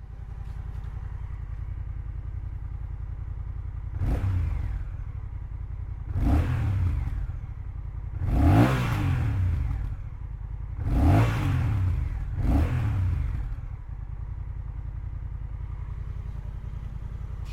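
2022 Honda Rebel 1100's parallel-twin engine on its stock exhaust, idling and revved five times in quick throttle blips, each rising and falling back to idle; the third rev is held longest.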